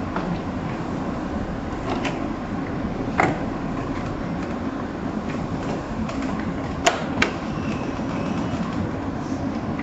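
Clicks and knocks from a plastic motorcycle fairing panel being fitted back in place, with two sharp clicks close together about seven seconds in, over steady background noise.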